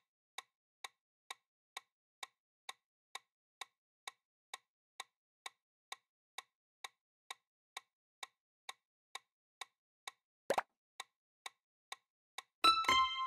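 Countdown-timer ticking sound effect, short clock-like ticks about two a second. About ten and a half seconds in comes a single louder knock as the time runs out, and near the end a bright ringing chime of several tones signals the answer reveal while the ticking carries on.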